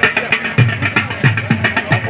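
A drum beaten in a quick repeating rhythm of deep strokes that drop in pitch, about four a second, over the steady noise of a large crowd.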